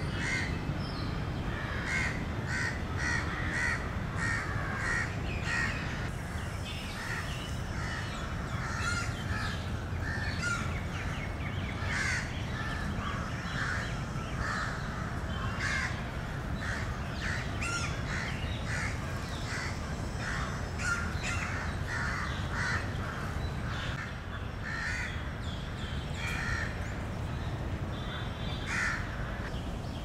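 Crows cawing over and over, many short calls overlapping through the whole stretch, over a steady low background rumble.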